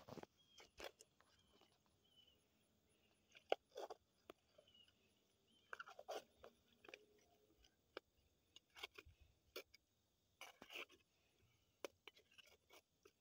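Hands scooping and scraping wet mud and dirt out of a small hole: faint, scattered short scrapes and crunches with quiet gaps between, one sharper click about three and a half seconds in.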